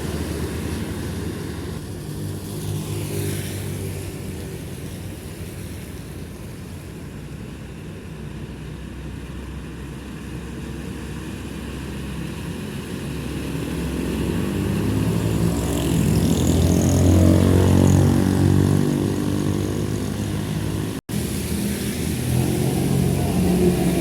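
Big trucks passing on a wet road: heavy diesel engines running with a steady low hum and tyre hiss, one passing about two to four seconds in and a louder, closer one building up and peaking about two thirds of the way through. The sound drops out for a moment about three seconds before the end.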